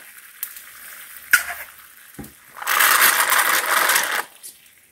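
A turkey baster sucking grease from a skillet of browned ground beef: a loud sputtering hiss for about a second and a half, a few seconds in, over a low sizzle. A light click comes earlier.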